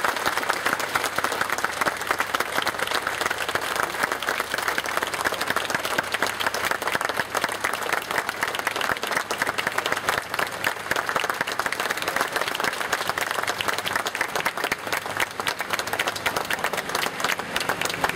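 Crowd applauding and clapping steadily: a standing ovation greeting an introduced guest, easing off slightly near the end.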